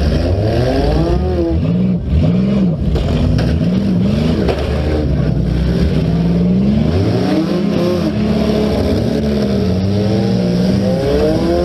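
Demolition derby car engines revving, several of them rising and falling in pitch over and over.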